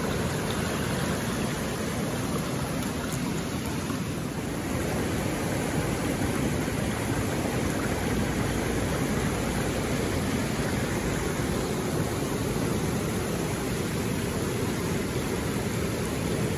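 Creek water rushing over rocks, a steady noise.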